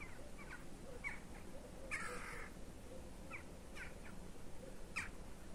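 A flock of birds calling as it flies over: faint, scattered short calls, with one harsher, longer call about two seconds in.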